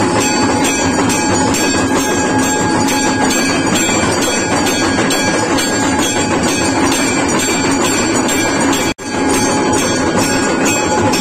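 Temple bells clanging nonstop in a fast, steady rhythm, a large hanging brass bell rung by hand among them, as they are rung for aarti before a Shiva linga. The sound cuts out for an instant about nine seconds in.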